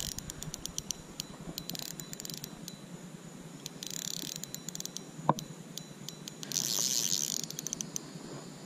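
Spinning reel's drag clicking in short rapid bursts as a hooked fish pulls line off; the drag is set light for 4-pound line. A single sharp tick comes about five seconds in.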